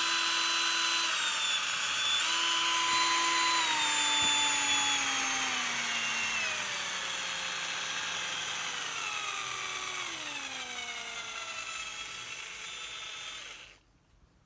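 Ingco cordless drill motor whining at top speed. Its pitch dips briefly about a second in, then slides slowly downward as the motor winds down, stopping just before the end.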